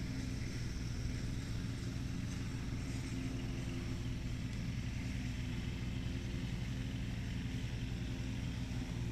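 Engine of a grass-cutting machine running steadily: a constant low, even hum that does not change.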